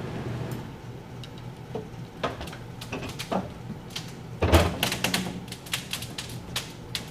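Irregular metallic clicks and clunks from a large steel roll-away tool box being moved, the loudest knock about halfway through, over a steady low hum.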